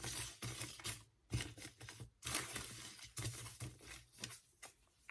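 Paper Kool-Aid drink-mix packets being handled: irregular rustling and crinkling that comes in short spells and dies away near the end.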